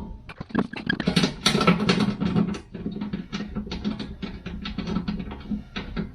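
A run of small clicks and ticks from hand tools working the oil pan bolts, coming about four or five a second in the second half, with quiet background music underneath.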